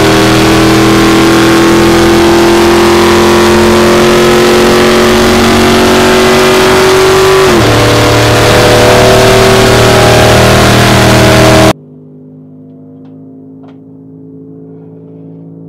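Supercharged methanol-fuelled big-block V8 (430 ci Dart block, 8-71 blower) heard from inside the cockpit at speed: loud, its pitch climbing slowly, then dropping sharply once about seven and a half seconds in and climbing again. Near the end it cuts off suddenly to a much quieter steady hum.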